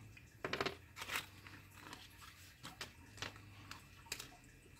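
Small clear plastic parts bag crinkling faintly as electronic kit components are shaken out of it onto a wooden workbench, in a few short scattered rustles and clicks.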